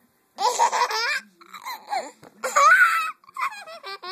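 Baby laughing hysterically: three loud bursts of laughter, the loudest and highest-pitched about two and a half seconds in, then shorter, choppier giggles near the end.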